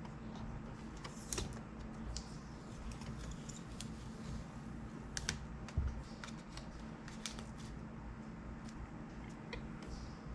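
Scattered small clicks and crackles of hands picking at and peeling adhesive tape off a resin printer's LCD screen and handling its plastic parts, over a faint steady hum.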